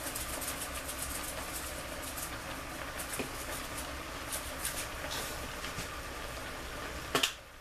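Steady hiss of a pan of cabbage cooking on the stove, with a few faint ticks as crushed red pepper flakes are shaken from a shaker over it.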